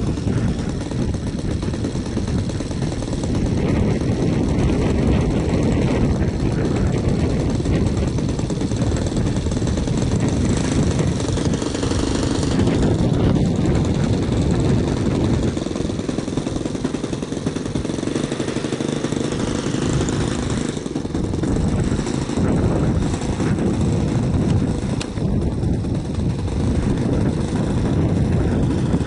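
The Saito 1.25 four-stroke glow engine of a Midwest Citabria RC plane runs steadily on the ground. Its revs change a few times as the throttle is moved.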